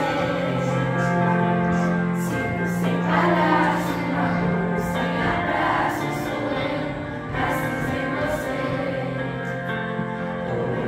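Children's and teenage choir singing together, the voices holding long notes.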